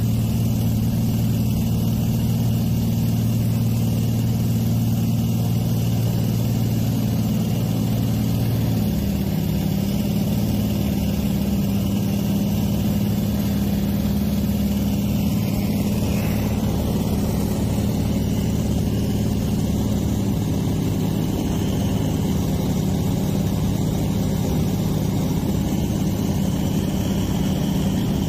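Single-engine seaplane's engine and propeller running steadily, heard from inside the cabin in flight; the drone drops slightly in pitch about nine seconds in.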